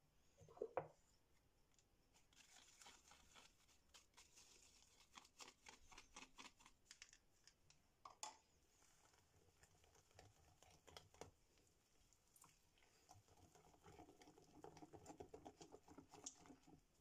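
Faint clicking and scraping of a wire whisk beating batter in a glass bowl, the strokes quickening and thickening in the last few seconds. Just before the whisking there is a single knock, the loudest sound here.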